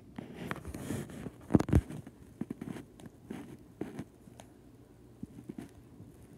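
Fingers tapping and rubbing on the handheld recording device, close to its microphone: irregular soft clicks and knocks, loudest about one and a half seconds in.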